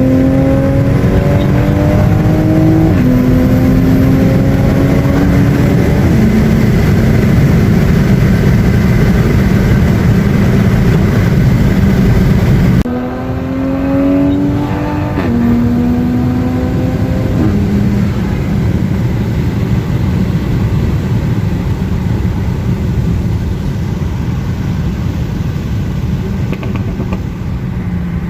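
MK5 Toyota Supra engine and exhaust under hard acceleration, heard from inside the car: the note climbs and drops back at each upshift, three times, then after an abrupt cut about halfway through it pulls again through two more upshifts and settles into steadier running.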